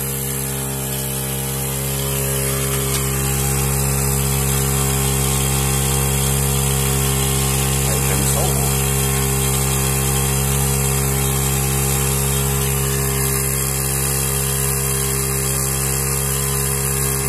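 Portable electric tyre compressor running steadily while it inflates a car tyre. It gives a constant mechanical hum with no change in pitch, and the tyre is nearing its required pressure.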